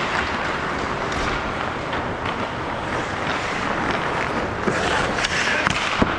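Ice hockey play: skate blades scraping across the ice, with sharp clacks of sticks and puck scattered through it, over a steady rink din.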